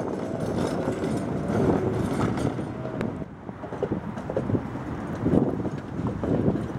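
Tatra T3 trams rolling over track crossings: a steady rumble with irregular wheel knocks and clatter over the rail joints. The sound drops briefly about three seconds in, then the clatter picks up again.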